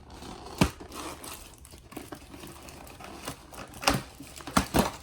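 Handling noises from a toy doll and its packaging: a few sharp clicks and knocks over light rustling, one early and a cluster of three near the end.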